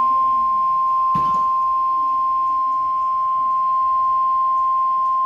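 NOAA Weather Radio 1050 Hz warning alarm tone: one steady, loud high-pitched tone, with a brief click about a second in. The tone marks a warning-level alert and is what switches on alert radios.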